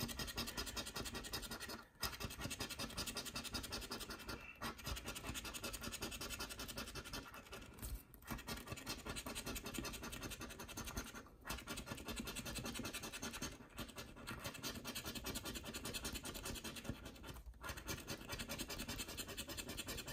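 Scratch-off lottery ticket being scraped with a small round scratcher, the latex coating rubbed off in long runs of quick back-and-forth strokes. The runs are broken by short pauses every two to four seconds.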